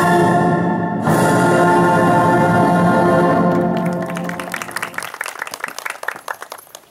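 Orchestral music with brass holding its last sustained chord, fading out after about four seconds. Applause from a small crowd starts about three and a half seconds in and dies away near the end.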